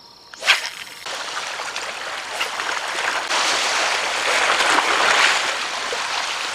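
A short swish about half a second in as a fishing rod is cast, then from about a second in a steady wash of sea waves against shoreline rocks that grows louder in the middle.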